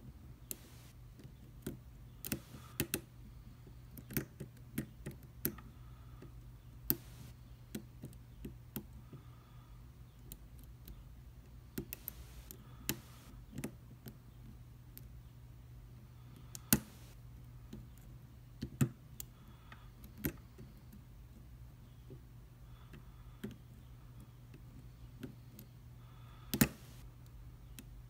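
Lock pick and tension wrench clicking irregularly against the serrated pins of a Commando padlock as it is picked, a few clicks much louder than the rest. A steady low hum runs underneath.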